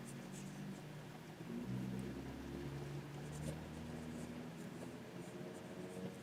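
Stylus strokes on a Wacom pen display: short, soft scratches of the pen nib drawing across the screen, over a low steady hum.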